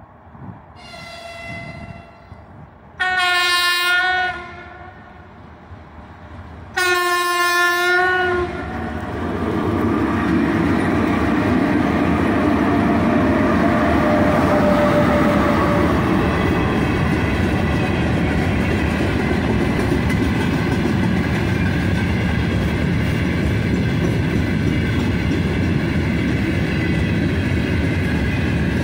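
3ES5K 'Ermak' electric locomotive sounding its horn, a short faint blast and then two loud blasts of about a second and a half each, as it approaches. The locomotive and its long freight train then pass, a loud steady rumble of wheels and wagons with clickety-clack.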